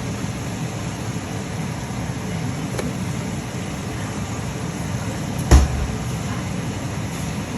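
A steady low hum, such as a fan or motor gives, with a single sharp knock about five and a half seconds in.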